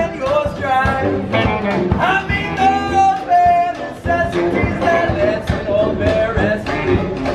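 Live street brass band playing with a male singer: sousaphone, bass drum, banjo and saxophone among the instruments, with a steady drum beat.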